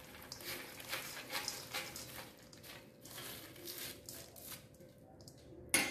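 Fried peanuts, cashews and roasted gram sliding and rattling off a newspaper-lined plate into a steel bowl of fried mixture, with paper rustling. A sharp knock near the end.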